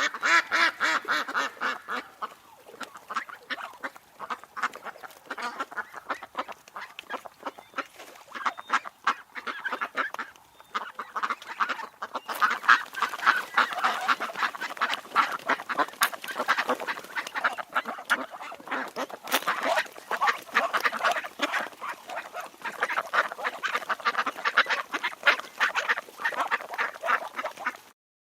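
Ducks quacking: a dense run of short quacks, one after another and often overlapping.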